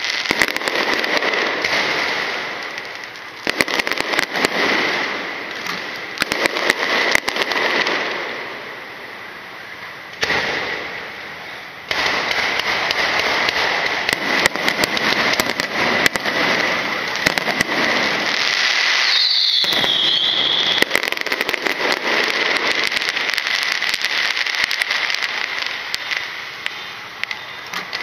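Fireworks going off in a dense, continuous crackle with many sharp bangs, easing off about ten seconds in before building up again. A short falling whistle sounds about two-thirds of the way through.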